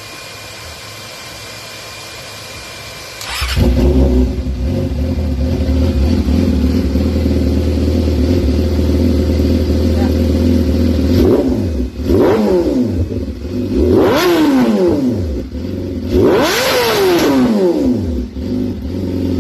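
Yamaha R6 inline-four sport-bike engine, fitted with an SC-Project titanium exhaust, starting up about three seconds in and idling steadily. Near the end it is revved three times, the pitch rising and falling each time.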